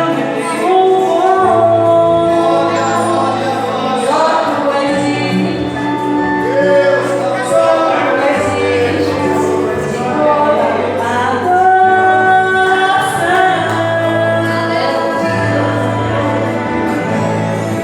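Church praise band performing a worship song, with singing led by women's voices over instrumental backing and a steady bass line.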